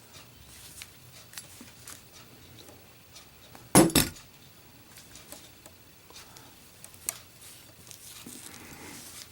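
A lit Zippo lighter dropped onto a target: a loud metallic clatter about four seconds in, two quick knocks as it lands, amid a few faint clicks and clinks of handling.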